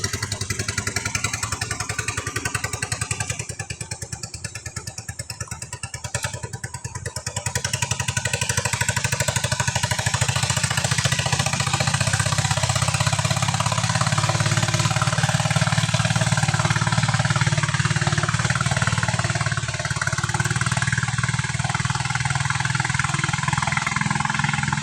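A small boat's engine running: it eases off a few seconds in, then picks up again around eight seconds in and runs steadily louder.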